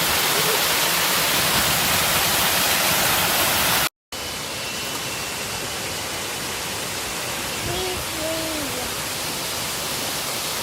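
Waterfall rushing in a steady, loud roar of falling water. About four seconds in the sound cuts out for a moment, then returns as a quieter, duller steady rush.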